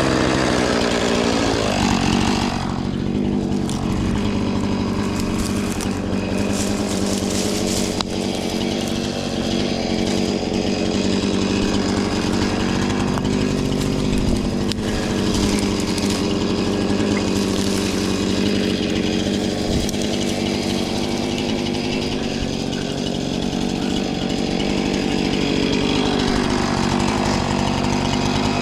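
Husqvarna 450 Rancher two-stroke chainsaw running steadily at high speed, its pitch sagging briefly a few times as the chain bites into the wood.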